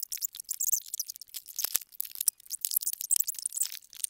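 Cardboard box flaps and plastic wrapping rustling and crinkling as a boxed drum smoker is unpacked, with two quick knocks about a second and a half in.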